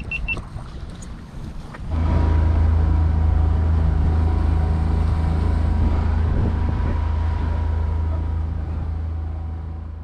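Boat engine running with a steady low drone that comes in abruptly about two seconds in and fades near the end.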